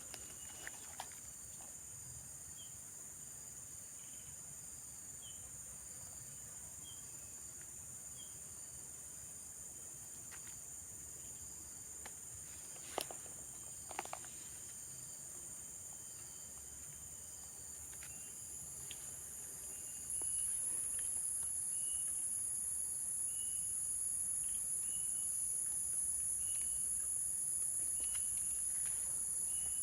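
Steady, high-pitched insect chorus, with a second, louder insect joining in about twenty seconds in. Short chirps repeat about every second and a half, and there are a couple of sharp clicks near the middle.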